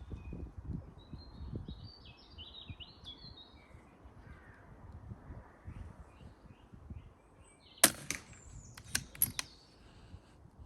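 Wind on the microphone and bird chirps, then one sharp shot from a silenced .177 Daystate air rifle about eight seconds in. A second later come three quick clicks.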